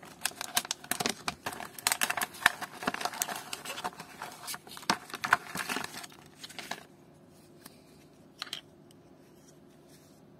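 Close handling noise: a dense run of clicks, scratches and rustles for about seven seconds, then quieter, with one more click near the end.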